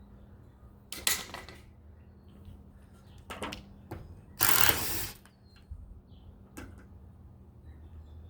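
Plastic roof gutter trim strips being slid out of the roof channel on a Ford Edge: three short scrapes, the loudest lasting about half a second, around the middle.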